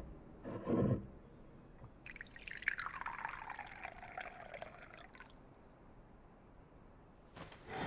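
Liquid, likely tea, poured into a cup for about three seconds, the trickle falling in pitch as it runs. A brief knock comes about half a second in, before the pour.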